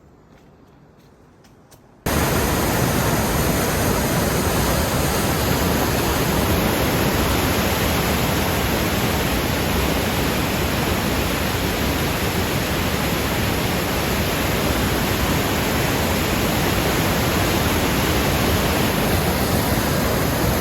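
Steady, loud rush of a waterfall heard up close, cutting in abruptly about two seconds in after a short quiet stretch.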